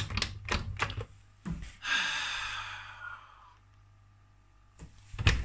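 Clicks and knocks of an Indesit IWB71250 front-loading washing machine's door being tugged while its door lock stays engaged after the wash has ended. A long sigh follows, then a few more sharp clicks near the end.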